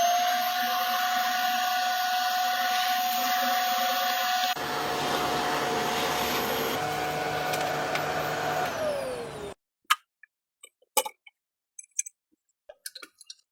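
An electric motor spins up to a steady whine and runs; partway through a lower rumble joins in, then the motor winds down with falling pitch and stops abruptly. A few scattered knocks follow.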